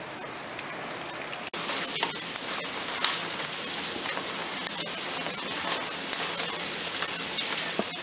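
Hail and pouring rain hitting the back door and window: a steady hiss of rain dotted with many sharp, irregular taps of hailstones.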